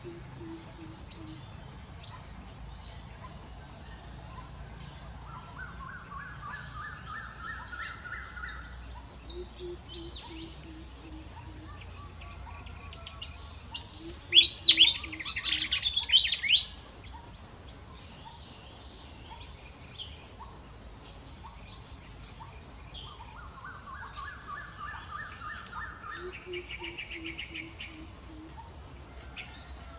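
Wild birds calling outdoors: a repeated run of short low notes, rising series of clear, higher notes that come back twice, and about halfway through a loud burst of rapid shrill chattering that lasts about three seconds.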